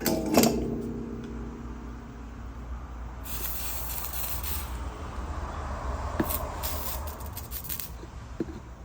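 A sharp metallic clank at the start that rings on for a second or two, then a vehicle passing, its rumble swelling and fading over several seconds.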